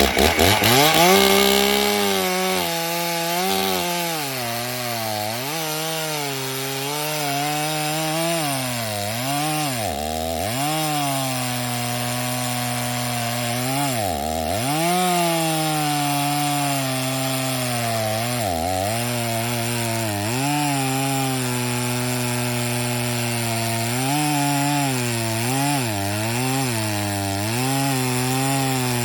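Two-stroke Stihl chainsaw throttled up and cutting through a cottonwood log. The engine pitch sags and recovers again and again as the chain loads up in the cut, dropping deeply a few times as the saw bogs down.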